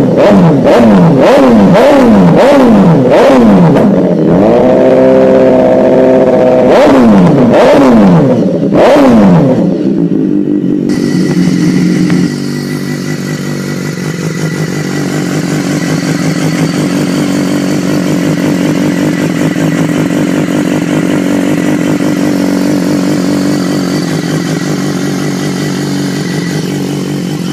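BMW S1000R's inline-four engine through an aftermarket slip-on silencer, blipped hard about twice a second, held at high revs briefly, then blipped again. About ten seconds in the sound cuts to a second bike's engine running steadily at idle for the rest.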